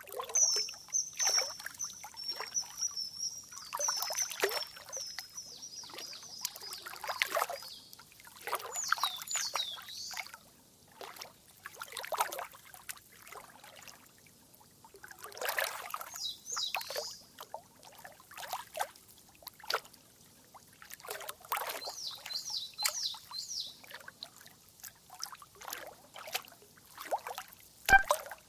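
Irregular trickling and splashing water sounds, with runs of short, high, falling chirps at several points.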